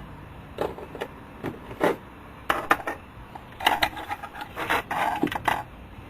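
Small metal hardware being handled: irregular clusters of short clicks and rattles as nuts are tried on a gauge's mounting studs.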